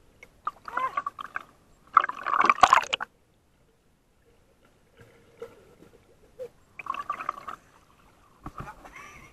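Water gurgling and bubbling around an underwater action camera, in about four separate bursts as swimmers move past it, the loudest about two seconds in.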